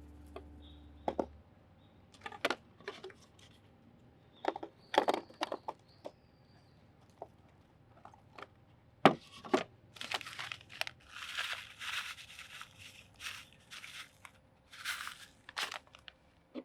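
Handling noise: scattered light clicks and knocks, then a run of crinkling and rustling in the second half.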